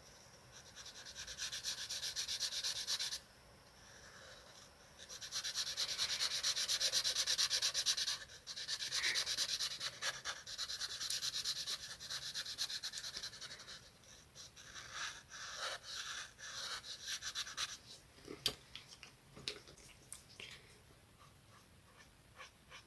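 Coloring on paper: rapid back-and-forth scribbling strokes in stretches of a few seconds, with short pauses between. The strokes turn shorter past the middle, and scattered light taps and clicks follow near the end.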